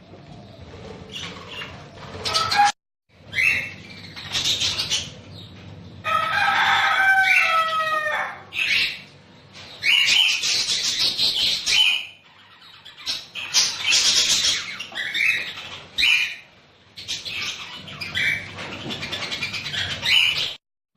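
Budgerigars chirping and chattering in bursts, with wings flapping. The sound breaks off abruptly a few times.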